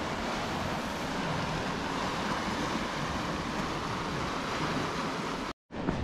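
Sea surf washing steadily on a rocky shore, with some wind noise. The sound cuts out for a moment near the end.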